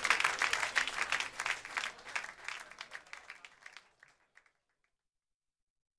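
Audience applause, thinning to scattered claps and dying away about four seconds in.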